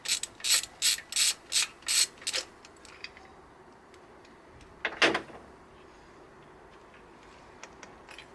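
Ratchet wrench on a spark plug socket clicking in short, even strokes, about three a second, as a rusty spark plug is unscrewed from the cylinder head. The clicking stops after about two and a half seconds, and one louder knock follows about five seconds in.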